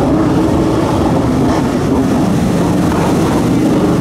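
Stand-up jet ski's two-stroke 1200 cc Yamaha engine running hard through freestyle turns, its pitch rising and falling slightly, with the hiss of water spray.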